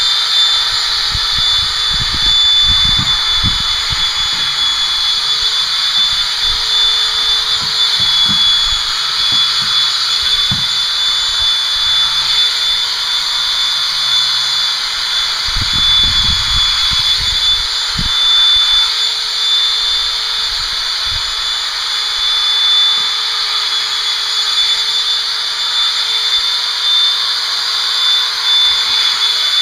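Large electric horse body clippers running steadily with a high, even whine while their blades shear through the horse's coat. A few low knocks come a couple of seconds in and again around the middle.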